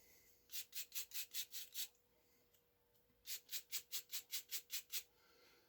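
A small wire brush scrubbing a chainsaw's spark arrestor screen clean, in two runs of quick back-and-forth strokes, about five a second, with a pause between them.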